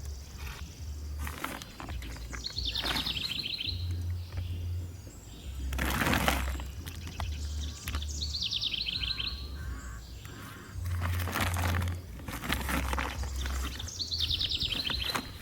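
A bird calling outdoors: three short calls about six seconds apart, each a quick run of notes stepping down in pitch, over a low pulsing hum and one brief whoosh about six seconds in.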